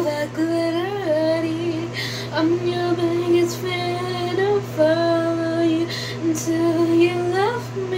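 Outro music: a female vocal singing a melody with sliding notes over a steady low synth bass.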